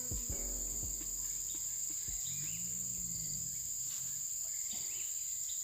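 Steady high-pitched trilling of an insect chorus, crickets or similar, running without a break.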